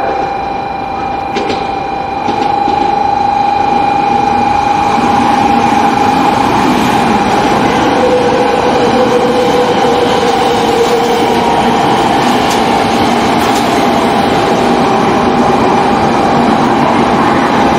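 700 series Shinkansen train arriving and rolling slowly past at close range: a steady whine over a rushing rumble of the train on the track, which swells about two seconds in and then holds.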